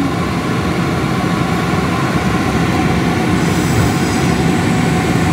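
Steady, loud rumbling noise with a low hum. A faint high hiss joins about three and a half seconds in.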